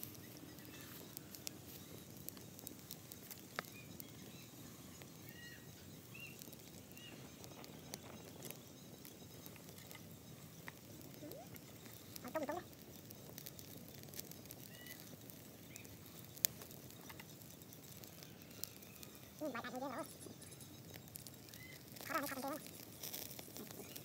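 Small open wood fire crackling with scattered sharp pops, with faint small-bird chirps in the background. A few short voice-like sounds come about halfway through and again near the end.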